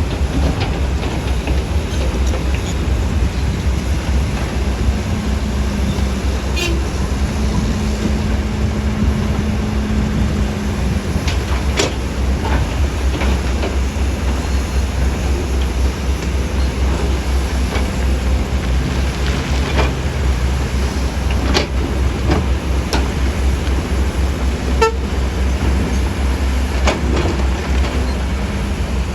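Heavy diesel earthmoving machinery running with a steady low rumble. A few sharp metallic knocks come through in the second half, and a held tone rises over the engine for a few seconds early on.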